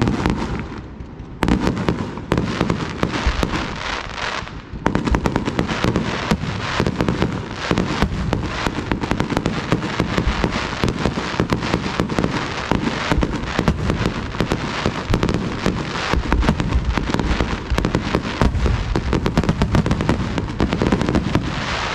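Aerial firework shells launching and bursting in a rapid barrage of bangs and crackling. The barrage thickens into a near-continuous volley about five seconds in.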